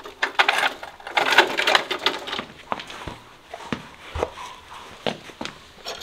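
Rustling and scuffing as a horse's shod foreleg is lifted and held between a farrier's leather apron, then a handful of single sharp knocks and clicks from the hoof and its steel shoe being handled.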